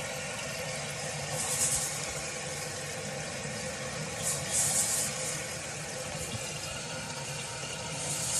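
Newly fitted toilet fill valve refilling the tank: a steady hiss of water running in, swelling louder for a moment a few times.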